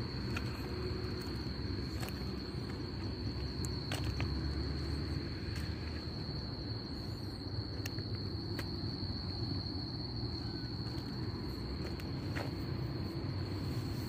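Crickets chirring in one steady, unbroken high-pitched trill over a louder low rumble, with a few scattered faint clicks.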